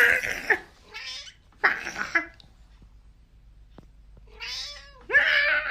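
A cat meowing loudly in five drawn-out calls, three close together and then two more after a pause of about two seconds.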